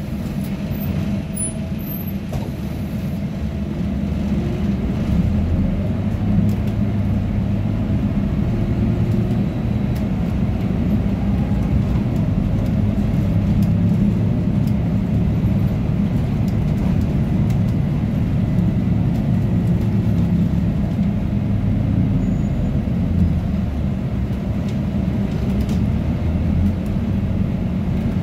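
Cabin sound of a Scania OmniLink CK230UB city bus driving: a steady low engine and drivetrain rumble through its ZF 5HP504C automatic gearbox, growing louder about four seconds in as the bus gets under way, with the air conditioning running throughout.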